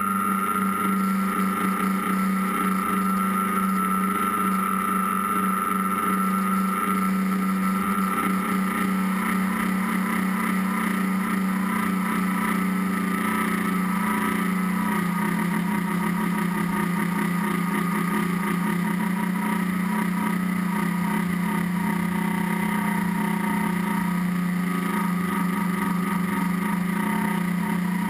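Tricopter's three electric motors and propellers buzzing steadily in flight, heard up close from the onboard camera, with small shifts in pitch as the throttle changes.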